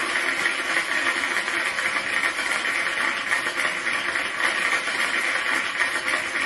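Studio audience applauding steadily, a dense even clapping that holds without a break.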